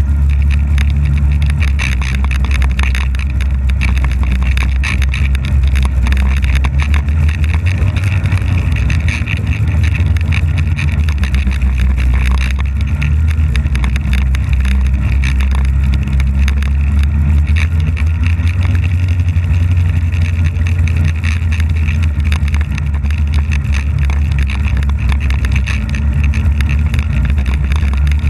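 Polaris snowmobile being ridden, its engine and track running with a loud, steady drone, heard up close on the sled.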